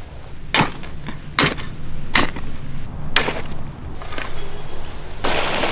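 Five chopping blows of a digging tool into red soil and clay, roughly one a second, as earth is dug out to build a clay stove. Near the end a steady rushing noise sets in.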